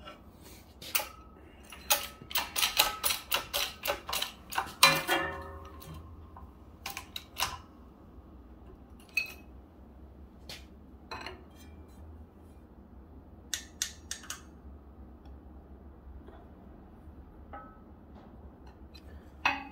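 An H-frame shop press bending a strip of .080 aluminium between a 3D-printed punch and die. A quick run of sharp clicks and ticks comes about two to five seconds in, the loudest near its end, followed by scattered single clicks.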